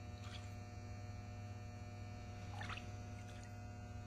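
Steady electrical mains hum, with faint brief sloshes of liquid in a plastic tub as it is handled, about a third of a second in and again about two and a half seconds in.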